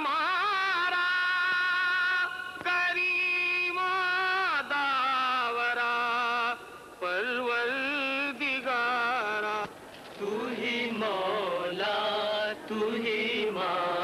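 A single voice chanting a slow, ornamented religious melody, holding long wavering notes and gliding between pitches, with a couple of short breaks in the second half.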